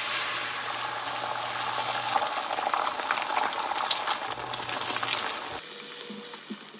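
Beaten eggs hitting a hot pan oiled with olive oil and sizzling loudly. The sizzle drops off about five and a half seconds in, leaving softer sizzling with light ticks of a spatula as the eggs are stirred and scrambled.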